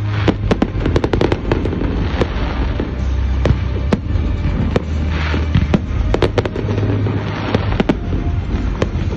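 Fireworks display: a rapid, continuous barrage of sharp bangs and pops over a low rumble, with a burst of crackling hiss about five seconds in.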